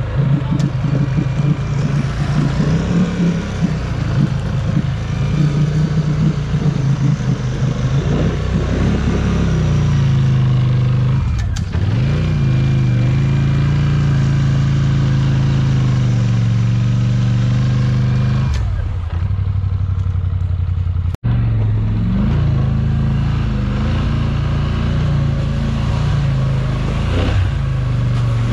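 V-twin ATV engine working hard through deep mud. The throttle comes in uneven bursts at first, then the engine holds high revs for several seconds, dips briefly, and pulls on again.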